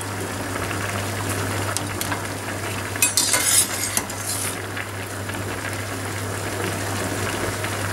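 A pot of salted water at a rolling boil on a gas hob, bubbling steadily, while a metal slotted spoon stirs and clinks against the steel pot as blanched borage leaves are lifted out. About three seconds in there is a brief, brighter hissing splash.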